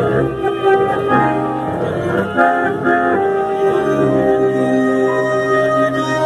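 Live tango music from a sextet of violins and bandoneon, moving through shorter notes and then settling into long held notes over a low sustained bass note in the second half.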